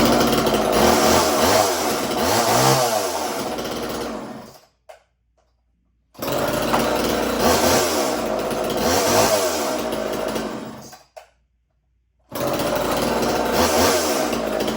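Small two-stroke chainsaw revving up and down in three separate runs of a few seconds each. Each run cuts off abruptly.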